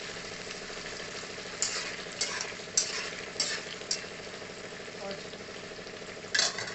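Sliced onions and whole green chillies sizzling as they fry in hot oil in a metal kadai. A steel fork stirring them clinks against the pan five times, about every half second, and there is one louder clank near the end.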